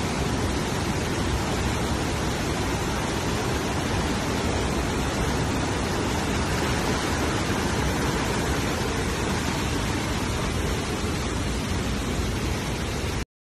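Steady rush of water from a rocky waterfall and the stream flowing over the road crossing, an even hiss with no pitch or rhythm, cutting off suddenly near the end.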